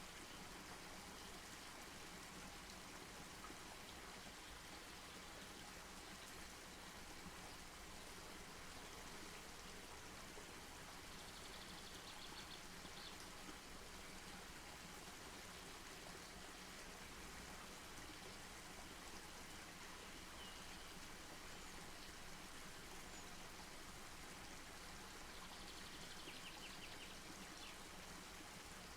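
Campfire burning: a faint steady hiss with a short run of quick crackles about twelve seconds in and another near the end.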